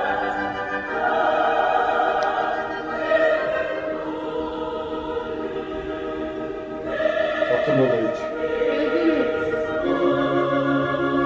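Operatic singing by soloists and choir with orchestra, playing from a television's speakers, with long held notes.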